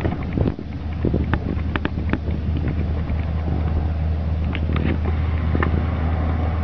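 A steady low engine hum, like an idling vehicle, with a few faint clicks scattered through it.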